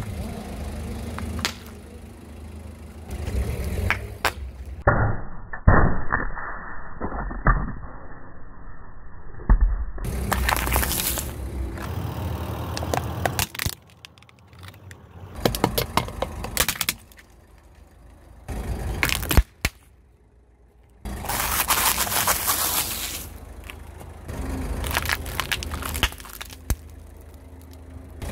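A car tyre rolling slowly over and crushing small objects on pavement, in a run of separate takes: many sharp cracks and crunches over a low steady rumble from the car, with abrupt changes from one take to the next.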